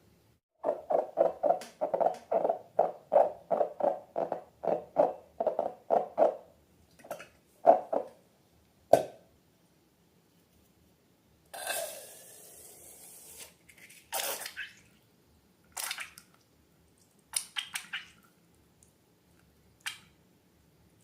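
Slime being squeezed and worked by hand: a quick run of wet squelches, about three a second, then a few single squelches. About halfway through comes a two-second hiss, followed by scattered squishes and clicks.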